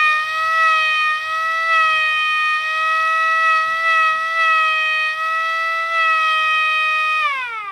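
Air-raid siren sounding one steady wail with a slight waver in pitch, then starting to wind down with a falling pitch near the end.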